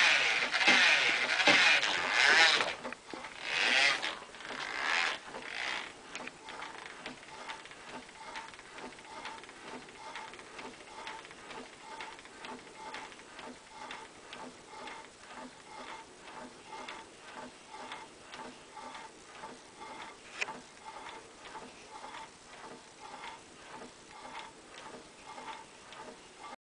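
Homemade wooden pendulum-and-flywheel mechanism running, its arms pivoting on shoulder bolts and giving a regular clacking of about two knocks a second. A louder mechanical noise fills the first few seconds, then drops away.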